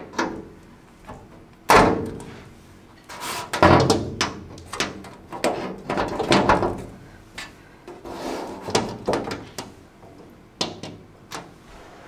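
A clear plastic pegboard panel being handled and hung on magnet clips inside a steel-and-glass IKEA MILSBO cabinet: a run of irregular knocks, taps and rattles as it bumps the frame and clips. The loudest knocks come about two seconds in and about four seconds in.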